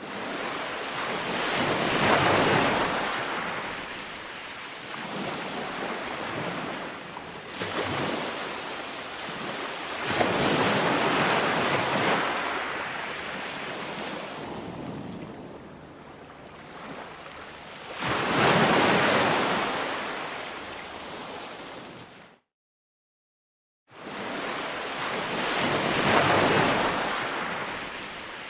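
Ocean surf breaking on a shore: five or six waves, each swelling up over a second or two and then slowly washing away. Near the end the sound cuts out completely for about a second and a half, then the surf comes back.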